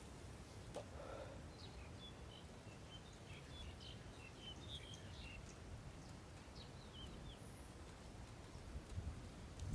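Faint rural ambience: small birds chirping in many short, high notes over a steady low rumble.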